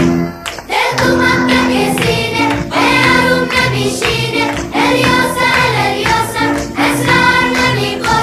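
Background music: a song with group vocals over sustained instrumental notes, the voices entering about a second in.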